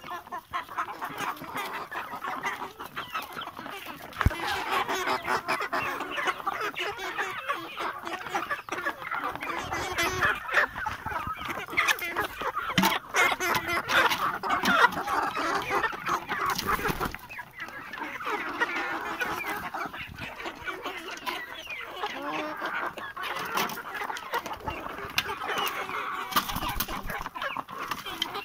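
A flock of hens clucking continuously and all at once while they feed, getting louder about four seconds in, with a few sharp knocks scattered through.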